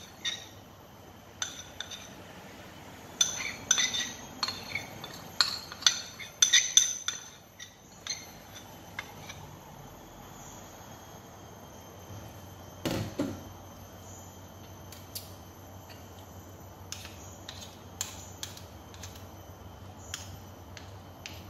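Spoon clinking and scraping against a ceramic bowl while scooping out thick melted chocolate, with a quick run of sharp clicks in the first seven seconds or so. A single duller knock comes about 13 seconds in, then scattered light taps.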